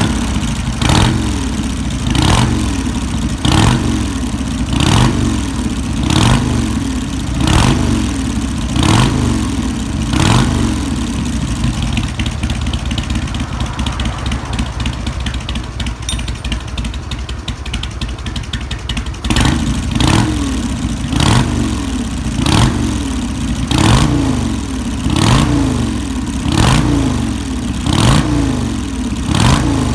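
Harley-Davidson Sportster V-twin running through drag pipes with an inner silencer fitted, the throttle blipped over and over, about once a second, each rev rising and falling back. Midway the blips give way to steadier running for several seconds, then start again abruptly about two-thirds of the way through.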